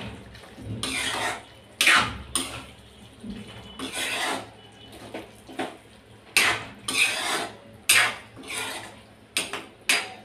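Metal spoon stirring and scraping a thick, wet bottle gourd and chana dal curry in a metal kadai. It comes as repeated scraping strokes, with sharp clinks where the spoon strikes the side of the pan.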